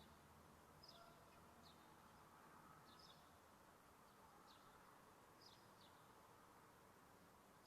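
Near silence: faint background hiss with short, high chirps that come irregularly, every second or so.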